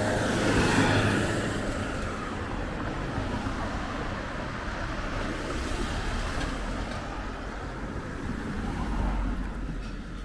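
Road traffic: a vehicle passes close by, swelling and fading over the first few seconds, then steady traffic noise with another low swell near the end.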